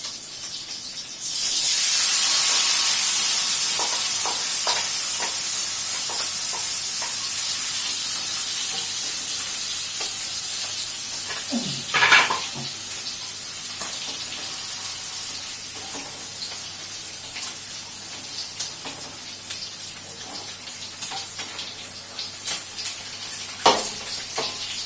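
Hot cooking oil sizzling loudly as pre-seasoned oseng tofu is dropped into the pan about a second in, then settling into a steady frying hiss. A few sharp utensil knocks come midway and near the end.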